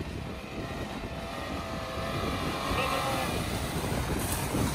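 Toyota Land Cruiser Prado's 4.0-litre V6 engine pulling under throttle as the SUV drives up through snow, its pitch rising slightly in the middle and the sound growing gradually louder as it comes closer.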